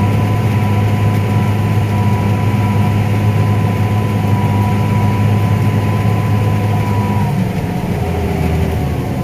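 Combine harvester running while cutting corn: a steady, loud engine drone with a high whine. About seven seconds in, the whine stops and the low drone drops.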